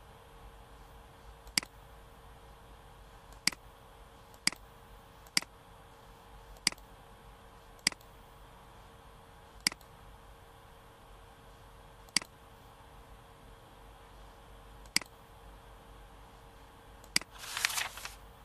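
Computer mouse clicks, about ten single sharp clicks spaced unevenly, over a faint steady hum. Near the end comes a short swish, the e-book software's page-turn sound effect.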